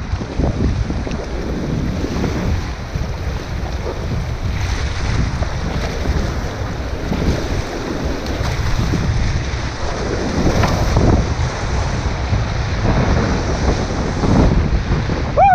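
River water rushing and splashing around an inflatable kayak, with wind buffeting the helmet-mounted microphone. A brief falling whistle-like note sounds right at the end.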